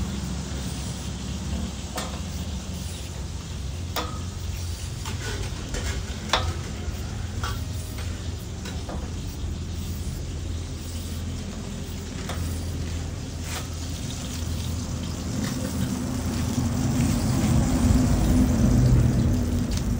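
Flat metal Kiwi vegetable peeler scraping the skin off a luffa gourd in short strokes, every second or two. A steady low rumble runs underneath and grows louder near the end.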